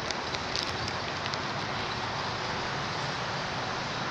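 Steady, even hiss of outdoor background noise, with a few faint clicks in the first second and a half.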